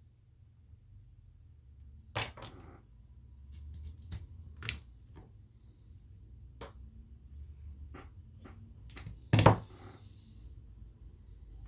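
Scattered small clicks and taps of tools and phone parts being handled on a workbench, about eight in all, with one louder knock just past nine seconds in, over a low hum.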